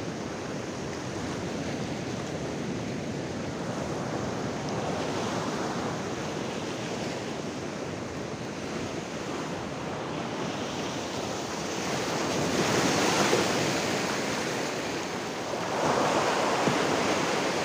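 Sea surf washing and breaking against a rocky shore, a steady rush with two louder surges of breaking waves, one about twelve seconds in and another near the end.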